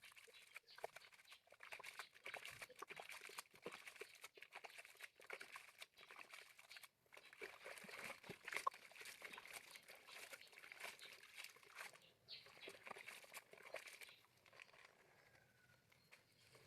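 Faint rustling and crinkling: a dense run of small crackles and clicks that thins out about fourteen seconds in.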